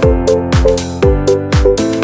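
Electronic dance music with a steady beat of deep kick-drum thuds, about two a second, and sharp ticks between them over held synth notes.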